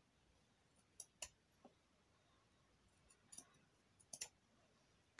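Small metal scissors snipping the tips off satin ribbon petals: a few faint, short clicks, some in quick pairs, a second or two apart.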